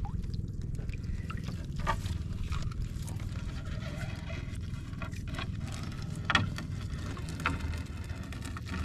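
Gill net being hauled by hand over the side of a wooden outrigger boat: scattered rustles, drips and small knocks of the wet net against the hull, with a few sharper ticks, over a steady low rumble.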